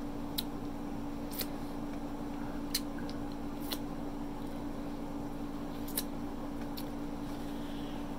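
Wet mouth clicks and smacks from licking fingers, a handful of short sharp ones a second or more apart, over a steady low hum.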